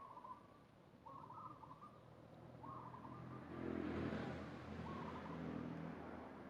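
A bird calling in short repeated warbled phrases, about once a second or so, while a motor vehicle passes, loudest about four seconds in.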